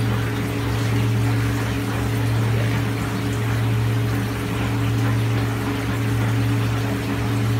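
Steady low machine hum with a hiss like running water, from the pumps running the water in the frog tank racks.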